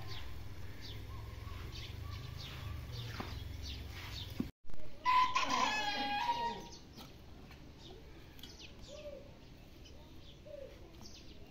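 A rooster crows once, a long call about five seconds in, among small birds chirping and a few short hen-like calls. A low rumble runs under the first few seconds, then stops at a cut.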